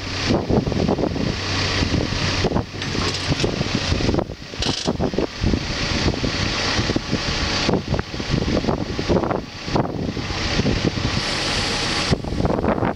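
Backhoe's diesel engine running at a steady speed.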